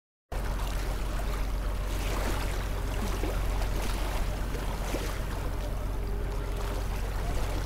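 Ship-at-sea ambience sound effect: a steady wash of water over a low rumble, starting abruptly about a third of a second in.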